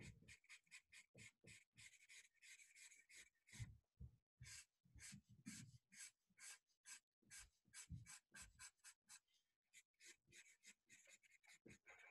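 Black felt-tip permanent marker scratching across paper in quick, short hatching strokes, several a second, faint. There are a few soft low thuds among the strokes.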